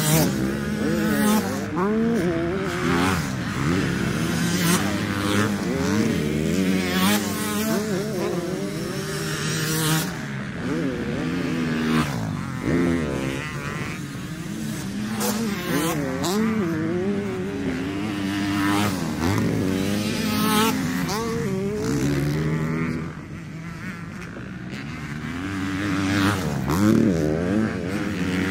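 Motocross bikes' engines revving as riders pass through a corner one after another, the engine pitch rising and falling again and again with the throttle. It grows quieter for a couple of seconds late on, before the next bikes come through loudly.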